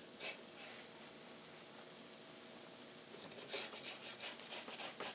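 Chicken birria tacos frying faintly on a hot plate that is not yet turned up: a low steady sizzle, with a scattering of crackles that picks up about three and a half seconds in.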